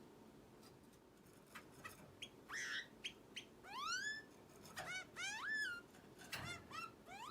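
Red-billed long-tailed finch calling: a few short chips, then a quick run of loud calls that each sweep upward and level off, repeated in little groups, a sound its owner likens to an alarm.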